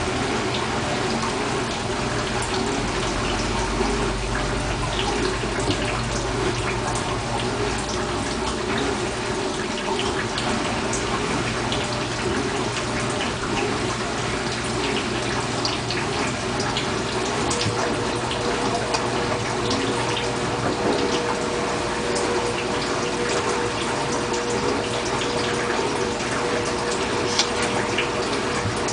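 Bosch washing machine with a full load: water running and splashing steadily in the drum, with scattered small ticks. A low hum sounds for the first several seconds, and a faint steady tone comes in about halfway.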